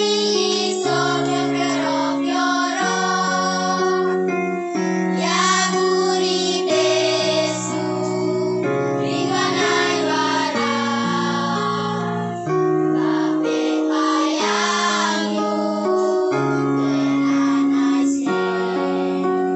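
A group of schoolchildren singing a song together in chorus into microphones, over a steady keyboard accompaniment.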